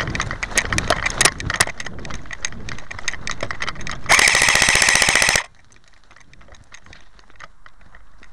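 Airsoft gun firing a full-auto burst: a rapid, even clatter of about a second and a half, starting about four seconds in and cutting off suddenly. Scattered irregular clicks and crackles come before it.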